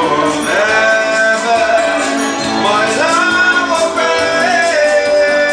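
Music: a song, with a singer holding long, wavering notes over instrumental accompaniment.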